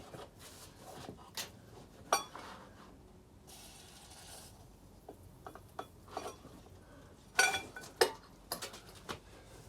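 Metal hand tools clinking and knocking against metal, some strikes ringing, with a short hiss about three and a half seconds in. The work is on seized fasteners that won't come free.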